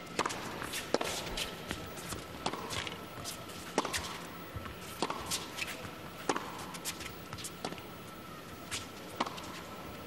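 A tennis ball bouncing on an indoor hard court and players' footsteps. The sharp knocks come about every second, over the low murmur of a hushed arena.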